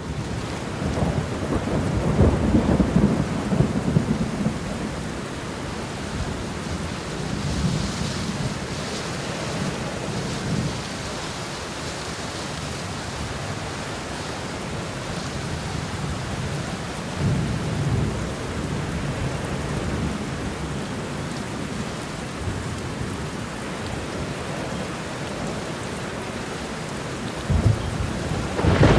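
Thunderstorm: steady rain with rolling thunder. A long, loud rumble comes in the first few seconds, quieter rumbles follow twice around the middle, and another builds near the end.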